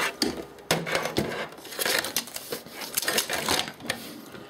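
Irregular clattering and knocking of small hard objects being handled and shifted about, a rummaging sound that dies down near the end.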